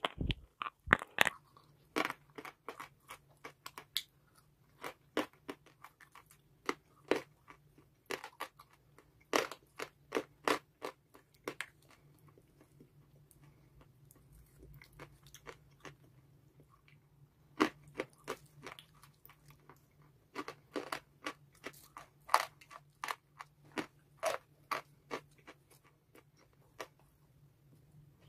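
Chalk being bitten and chewed close to the microphone: crisp, irregular crunches that thin out for a few seconds in the middle, then come thick again.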